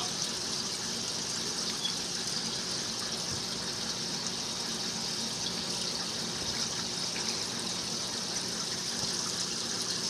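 Aquarium air stone bubbling steadily, a constant watery hiss, with a faint low hum underneath.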